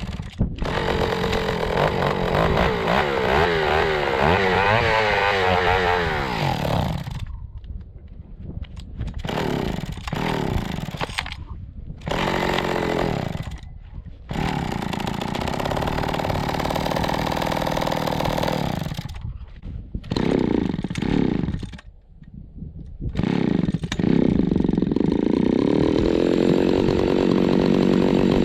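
John Deere 70V two-stroke chainsaw running unevenly: its engine speed wavers up and down and drops off sharply several times before it settles into steadier running near the end. The owner takes this uneven running as a sign that the carburettor's high and low mixture screws need adjusting.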